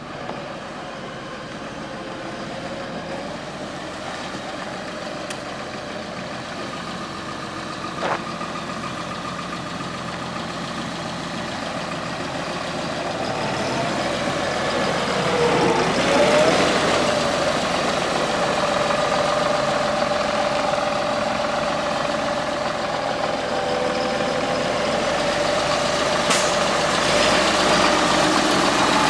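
Valtra tractor's diesel engine running as the tractor drives and turns on a dirt farm road, growing steadily louder as it comes closer. Partway through, the engine pitch dips and rises again as the revs change, and there is a single sharp click about 8 seconds in.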